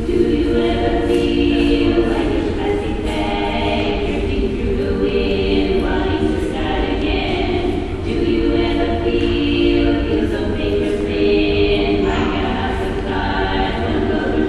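A recording of a choir singing in held chords, with a steady low hum beneath.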